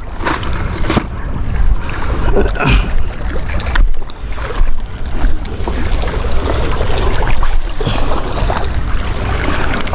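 Wind buffeting the microphone over the wash of sea water, a loud rushing noise that swells and dips, with a couple of sharp knocks about a second in.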